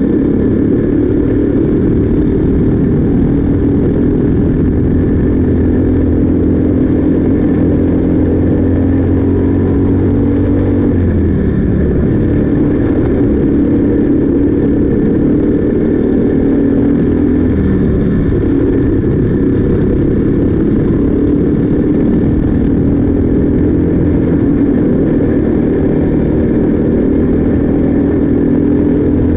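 The single-cylinder four-stroke Briggs & Stratton LO206 engine of a 206 Junior racing kart running hard at race pace, heard from on board. The engine note holds high, drops in pitch twice as the kart slows for corners, and climbs back each time.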